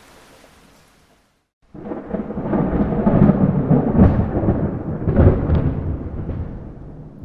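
Soft rain hiss fades out into a brief gap of silence, then a loud clap of thunder breaks in suddenly and rolls on as a deep rumble with crackling peaks, dying away near the end.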